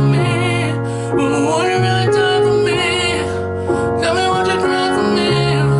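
Piano accompaniment playing sustained chords, with a voice singing a few held, wavering notes between lines of the song.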